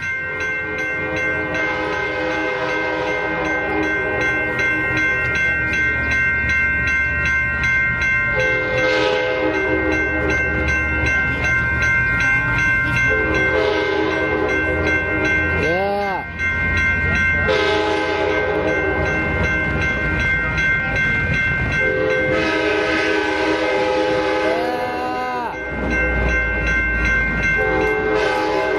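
Nathan K5LA five-chime air horn on an Amtrak F59PHI diesel locomotive, sounded in a long series of sustained blasts with short breaks between them: a horn show. The chord's pitch swoops as two of the blasts cut off. A low train rumble runs underneath.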